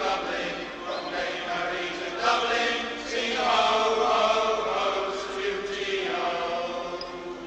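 A football crowd singing a chant in unison, many voices holding long notes together, played from a 7-inch vinyl sound-effects record.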